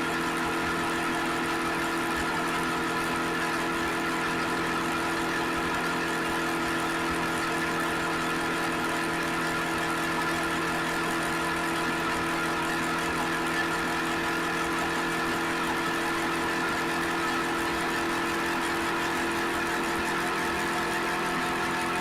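Suzuki SV650X motorcycle's V-twin engine running at a steady, unchanging engine speed, with no revving.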